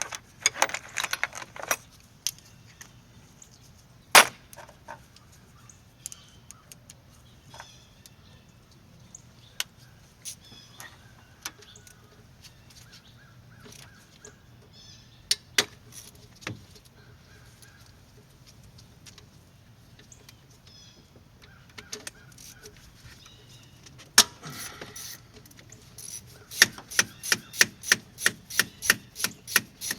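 Scattered clicks and knocks of hand tools on the engine, then near the end a 1/4-inch drive ratchet clicking steadily, about four clicks a second, as it turns out a throttle body bolt.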